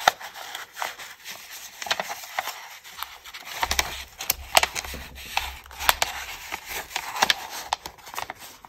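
Paper and card being handled: a decorated paper-clip tag rubs and rustles as it is slid onto a journal page's edge, with irregular small ticks and taps.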